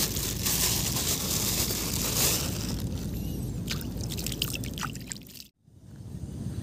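Thin plastic bag rustling and crinkling as it is handled, followed by wet squishing with a few short high squeaks. The sound drops out abruptly about five and a half seconds in, then a steady low hiss.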